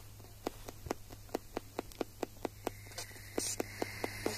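Ghost-hunting spirit box sweeping through radio channels: rapid, evenly spaced clicks about four to five a second over faint static and a steady low hum, with a faint high whine joining about three seconds in.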